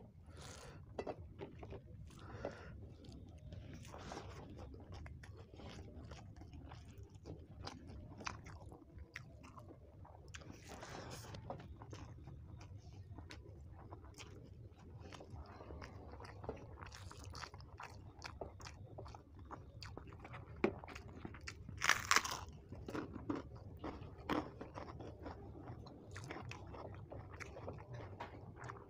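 Close-up eating sounds: chewing mouthfuls of rice with dal and egg curry, with a hand squishing rice on a plate and scattered crisp crunches of papad. One louder, sharper crunch comes about three quarters of the way through.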